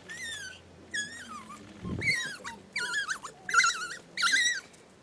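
African wild dogs twittering: about six high, wavering, bird-like calls in a row, louder toward the end. A low thud comes about two seconds in.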